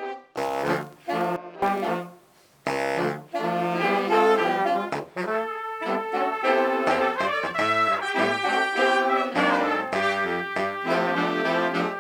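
Big band playing, led by its horn section of trumpets, trombones and saxophones. It opens with short punched chords, drops out briefly about two seconds in, then comes back in full, sustained ensemble playing.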